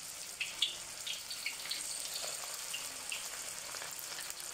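Battered cauliflower florets deep-frying in hot oil in a wok: a steady sizzle with scattered crackles and pops.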